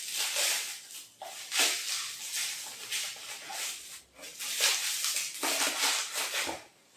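Thin plastic air-cushion packing crinkling and rustling as it is handled and cut open with a knife, in several bursts with short pauses.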